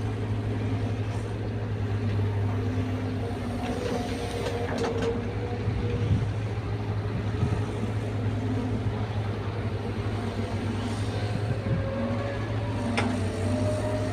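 Caterpillar 320 excavator's diesel engine running with a steady low hum, with brief higher whines from the working machine and a couple of light metallic clicks, about five seconds in and again near the end.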